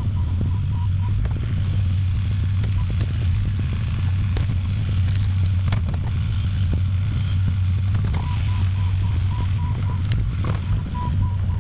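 Compact construction machine's diesel engine running steadily with a deep drone, with scattered knocks and clicks. A rapid high beeping, typical of a reversing alarm, stops about a second in and starts again in the last few seconds.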